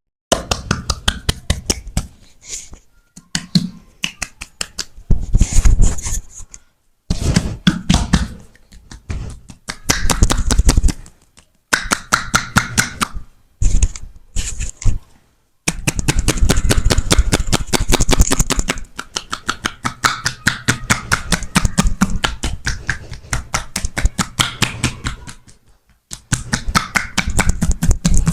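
Percussive hand massage: palms and hand edges slapping and chopping rapidly on the body in fast runs of sharp claps, broken by short pauses.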